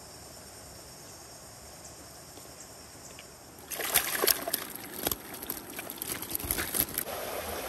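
Faint steady hiss, then from about four seconds in, river water splashing and trickling, with many sharp clicks.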